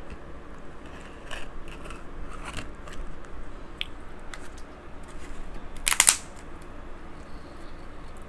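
King crab legs being cracked and pulled apart: scattered shell clicks and crackles, with one loud, sharp crack about six seconds in.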